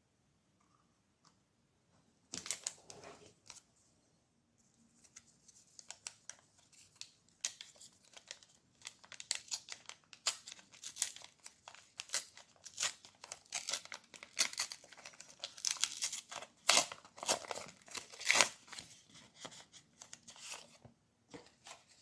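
Packaging being torn open and then handled and crinkled at length: a rip about two seconds in, then a long run of crinkling with a couple of sharper snaps near the end.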